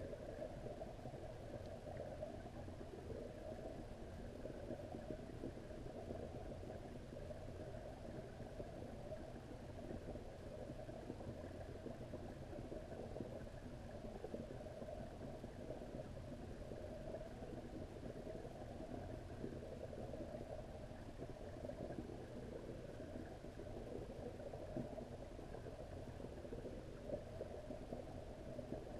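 Steady underwater rumble and hum picked up by a camera submerged in a koi pond, unchanging throughout.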